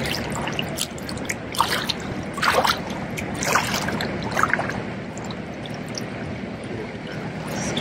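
Small waves lapping and trickling at a lakeshore in shallow water, with a few louder splashes from about one and a half to four seconds in as people wade at the water's edge.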